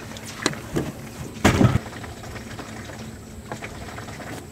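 Trotline rope being handled in an aluminium jon boat: a few light knocks, then a louder noisy scrape lasting a moment about a second and a half in, over the faint wash of river water.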